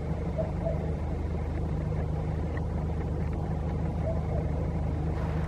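A steady low engine hum, running evenly.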